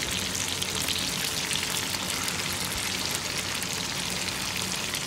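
Chicken pieces deep-frying in a pan of hot oil, a steady dense crackling sizzle.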